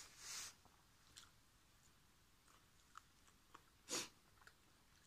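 Quiet mouth sounds of someone chewing chicken: a few soft, scattered clicks and smacks, with short puffs of breath, the loudest about four seconds in.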